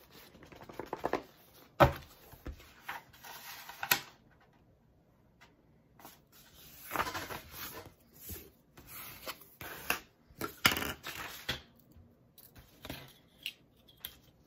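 Paper handling: folded book signatures rustle and tap as they are handled, and a sheet of antiqued paper slides and is smoothed flat on a cutting mat. A few sharp knocks and taps, the loudest about two seconds in.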